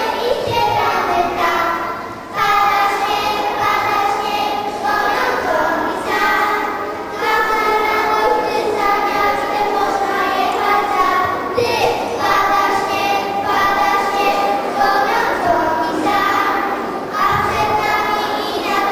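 A group of children singing a song, with held notes changing about once a second.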